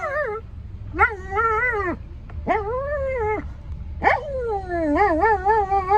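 Small dog crying in long, wavering, whining howls, three cries in a row with the last the longest, a distressed dog upset at being taken along. Under it runs the steady low rumble of the moving car.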